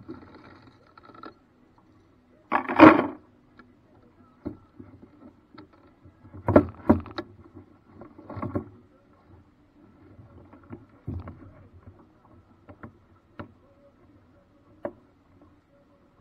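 Handling a small paddle craft on a river float: a series of irregular knocks and splashes, the loudest about three seconds in, with a cluster of smaller ones midway.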